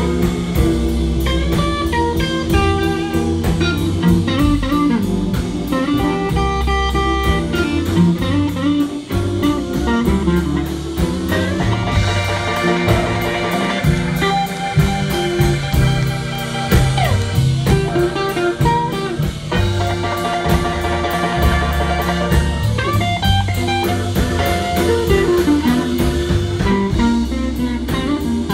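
Live blues band playing a slow blues: an electric guitar solos with bent notes over upright bass and drums.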